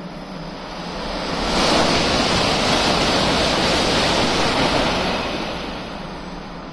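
N700-series Shinkansen passing through the station at high speed: a loud rushing roar of air and wheels that swells over about a second, holds for about three seconds, then fades away.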